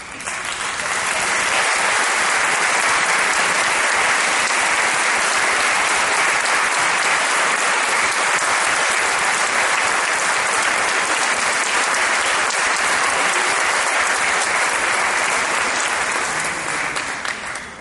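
Audience applauding: a dense, steady clapping that builds within the first second, holds, and dies away near the end.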